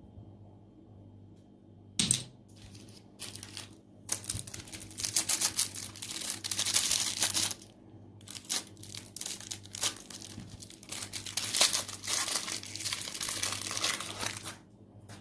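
Grinder crushing something crunchy: dense crackling and crunching in bursts from about two seconds in until near the end, over a steady low hum.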